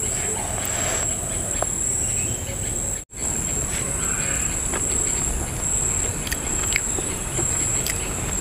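Insects chirring outdoors: a steady, high-pitched drone that runs on without pause. The sound cuts out for a split second about three seconds in.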